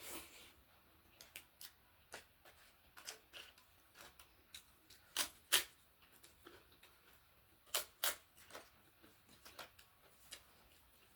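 Close-miked eating sounds: irregular wet clicks and smacks of chewing, with two louder pairs of clacks about five and eight seconds in.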